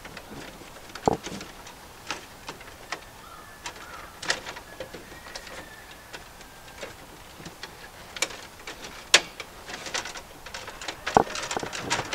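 Irregular sharp clicks and light taps of hand tools and stiff copper wire being worked in a breaker panel, as wire splices are twisted and capped with wire nuts.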